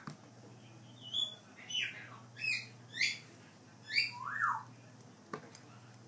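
Hand-reared African grey parrot chick making a string of about six short whistled calls, most sliding down in pitch, the last one lower and arching up then down. These are the calls of a young bird seeking attention after hand-feeding.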